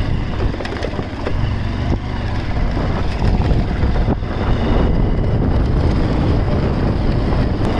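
Motorcycle engine running steadily while riding over a rutted dirt track, with wind rumbling on the microphone.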